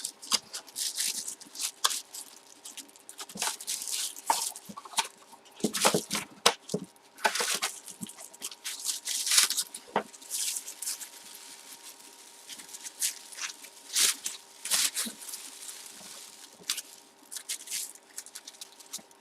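Hands handling packaging: irregular rustling and crinkling with scattered taps and clicks, coming in uneven clusters as an autographed baseball is unpacked.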